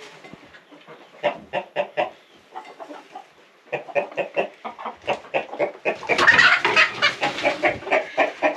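Chickens clucking in short, repeated calls, which grow louder and busier about six seconds in.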